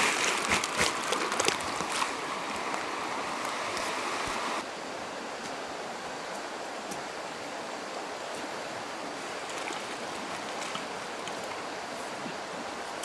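Water rushing steadily, with scattered splashes and sharp clicks over the first few seconds. About four and a half seconds in it cuts abruptly to a smoother, quieter rush of flowing water.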